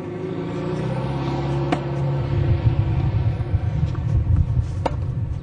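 Low rumble of a motor vehicle's engine, building steadily louder, with two sharp knocks about three seconds apart; it cuts off abruptly at the end.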